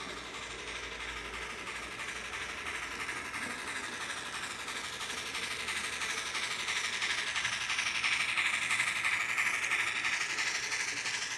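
Model train running on the layout track: a steady whirring of the motor and wheels on the rails, growing louder as the train approaches and loudest near the end.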